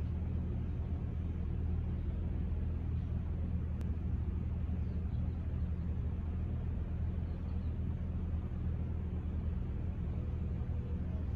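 Steady low background rumble of open-air street ambience at the crossing, with no train, bell or other distinct event.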